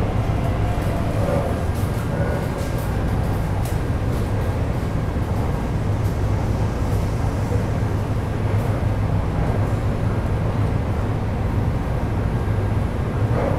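Interior running noise of a Taipei Metro C381 electric train car moving between stations: a steady low rumble of wheels on the track with a faint steady high tone.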